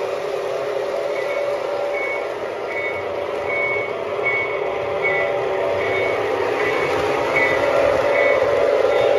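Lionel O-gauge Canadian Pacific 2373 diesel locomotive running on the track, its electronic sound system giving a steady diesel engine drone, with a bell dinging about one and a half times a second from about a second in.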